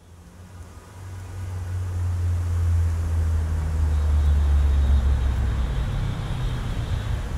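Low, steady rumble of road traffic that fades in over the first couple of seconds and then holds.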